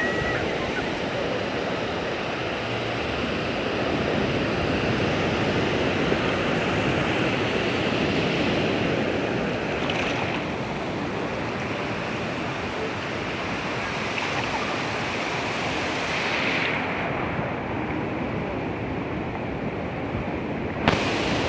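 Ocean surf on a sandy Pacific beach: waves breaking and washing in as a steady rush of noise. Late on the sound turns duller for a few seconds, then a sharp click comes near the end.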